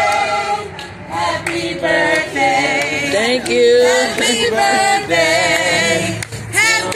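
Voices singing a melody, with held notes that waver in pitch.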